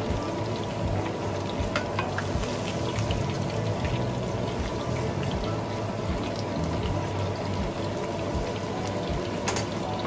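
Chicken pieces deep-frying in hot oil in an enamelled cast-iron pot: a steady sizzle and bubbling, with scattered crackles and pops throughout.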